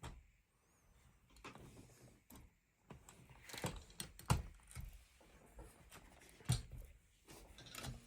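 Hands handling a 1/16-scale RC tractor model, its parts clicking and knocking in a series of short irregular taps, with the loudest knocks about four and six and a half seconds in.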